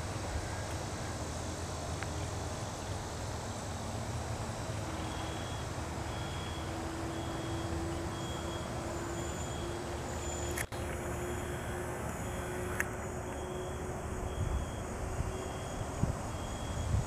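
Cessna 182T Skylane's six-cylinder piston engine running at low power in the distance as the plane rolls along the runway after landing: a steady low drone with a faint hum that rises slightly in pitch.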